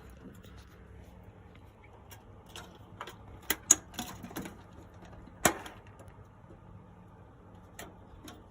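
Computer parts being handled and fitted together during a PC build: scattered clicks and knocks, with a cluster a little past three seconds in and another sharp knock about five and a half seconds in.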